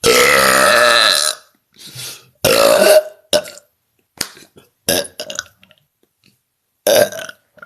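A woman burping loudly on purpose: one long burp of about a second and a half, then a shorter one about two and a half seconds in, followed by several short sounds, the last of them loud.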